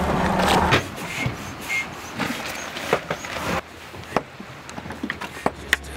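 An even water-and-wind noise that stops about a second in, followed by scattered light clicks and knocks, such as hands handling a hatch and gear on a boat.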